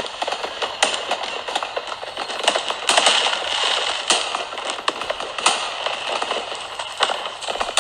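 Fireworks crackling and popping: a dense continuous crackle with sharp cracks about once a second, and no deep booms.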